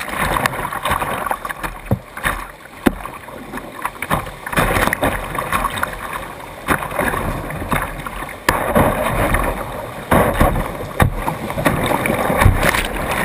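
Whitewater rushing and splashing around a kayak running a rapid, heard from a camera on the bow deck, with paddle strokes and water slapping against the camera in many sharp splashes. The rush surges louder and softer as the boat drops through the waves.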